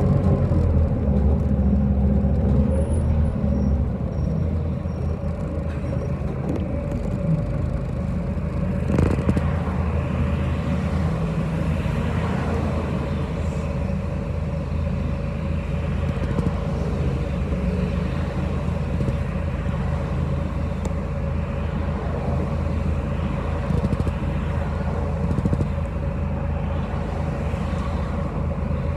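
City bus running, heard from inside the cabin: a steady engine drone and road noise, with a heavier low rumble for the first few seconds and a single knock about nine seconds in.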